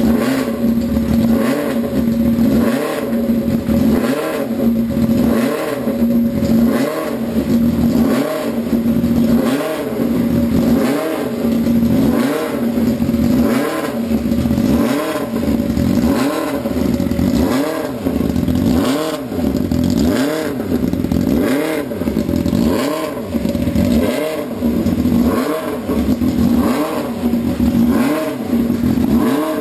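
Supercharged, methanol-fed 1988 Honda CBR250R four-cylinder engine running, its revs rising and falling in an even rhythm a little more than once a second.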